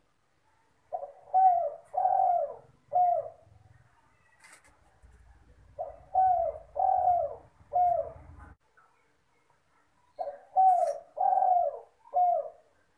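Spotted dove (derkuku, tekukur) cooing: three phrases of four coos each, about four seconds apart.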